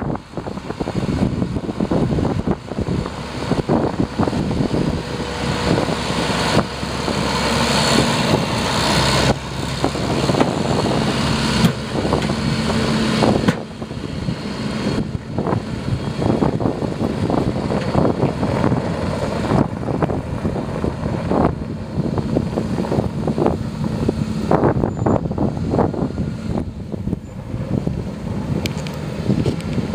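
A Deutz-Fahr 6190 tractor's six-cylinder diesel engine running as it pulls a loaded Maupu 18-tonne grain trailer along a gravel track. Tyres crunch on the gravel and the rig knocks and rattles, with wind on the microphone. It is loudest in the first half as the rig passes close, then steadier as it heads away.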